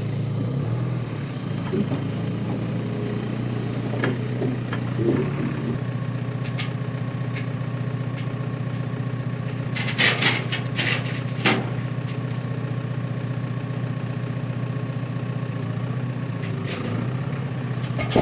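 JCB telehandler's diesel engine idling steadily, with a few sharp metallic clinks of lifting chain about ten seconds in as the chains are hooked to the steel frame.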